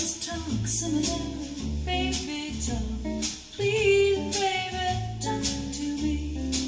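A jazzy song with singing and guitar over a steady bass line and regular cymbal strikes, played back through a Marantz 1090 amplifier and Elac EL130 II speakers.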